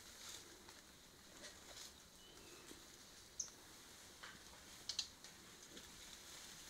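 Near silence of forest ambience: faint scattered rustles and crackles, a short high chirp about three and a half seconds in, and two sharp clicks around five seconds in.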